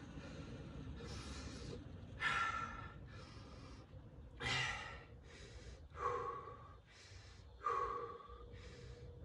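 A man breathing hard while recovering from exertion: four loud, heavy exhales, about one every one and a half to two seconds, with softer inhales between them.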